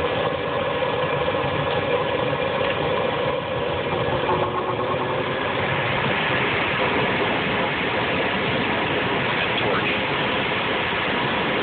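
Horizontal Rheem gas furnace running with its burners lit and the blower fan on: a steady rushing hum with faint steady tones. The blower's air is blowing the flames back out of the firebox through a hole in it, a failed firebox that calls for replacing the furnace.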